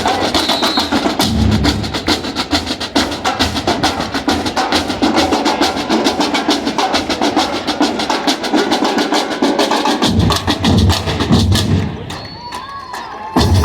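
Batucada drum ensemble playing a fast samba rhythm: a dense run of rapid strokes on the small drums, with the deep bass drums coming back in about ten seconds in. The drumming drops back briefly near the end, then comes in again.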